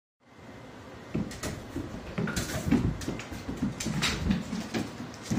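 Irregular thumps, knocks and scuffs of a pet's paws and body on a hardwood floor as it pounces and scrambles.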